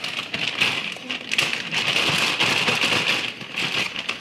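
Water being stirred by hand in a plastic bowl, sloshing and splashing steadily, with salt dissolving for a brine soak.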